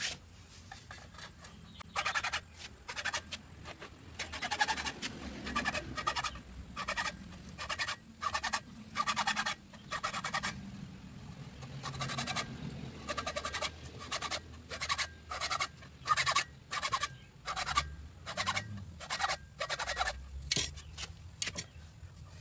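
Hand hacksaw sawing back and forth through a rod, a long run of rasping strokes with short gaps between them.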